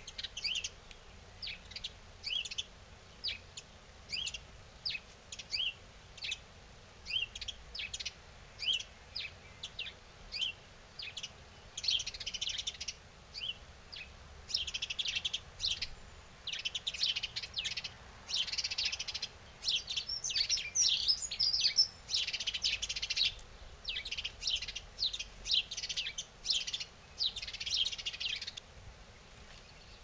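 Small garden songbirds chirping: short, high chirps, spaced out at first, then from about the middle crowding into busy, overlapping runs of chirping.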